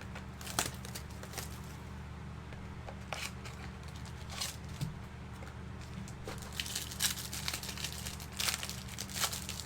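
Plastic or paper trading-card packaging crinkling and tearing in short irregular bursts as the next box of cards is opened and handled, over a steady low hum.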